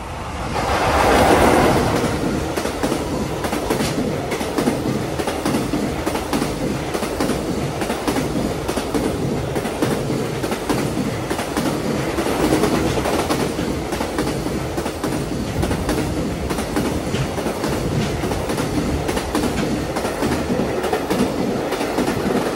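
JR Freight EF66 electric locomotive passing through, hauling a long container freight train: its sound swells to the loudest point about a second in, then the container wagons' wheels clatter steadily over the rail joints until the last wagon passes near the end.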